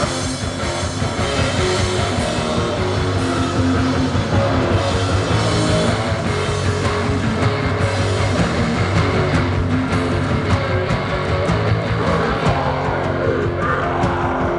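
Live heavy rock band playing loud, with distorted electric guitars and a drum kit keeping a steady beat. A steady held note comes in near the end.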